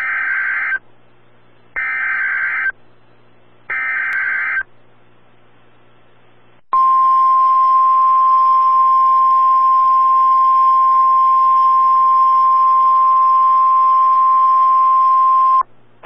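NOAA Weather Radio Emergency Alert System signal: three short bursts of SAME digital header data about two seconds apart, then after a short pause the steady 1050 Hz warning alarm tone for about nine seconds, which marks the start of a warning broadcast, here a tornado warning.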